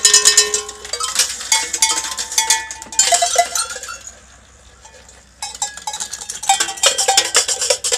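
Ball bearings dropping through a kinetic cowbell display, striking a run of cowbells in quick clanks, each bell ringing on. The clanking comes in two busy spells with a lull of about a second and a half in the middle.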